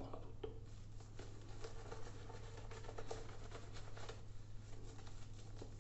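Razorock Snowman synthetic shaving brush working lather over a stubbled cheek: a soft, crackling, scratchy rustle that thins out about four seconds in. A steady low hum runs underneath.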